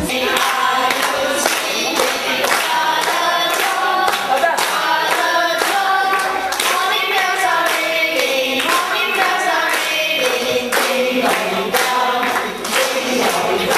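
A group of children and young women singing together in unison, with hand-clapping keeping a steady beat.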